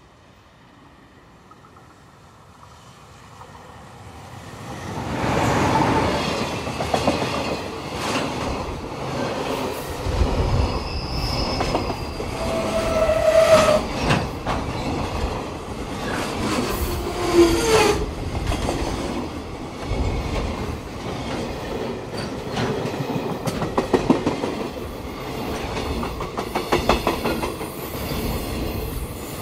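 Container freight train hauled by an electric locomotive passing close by: the sound builds over the first five seconds as the locomotive approaches, then the container wagons roll past in a steady loud rumble, with repeated clickety-clack of wheels over rail joints and a few brief wheel squeals.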